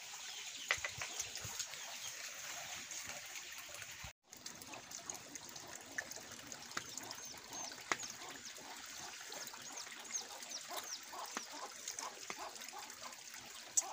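Faint trickle of liquid as coffee is poured into small glasses, with a few light clicks and scattered short, high bird chirps.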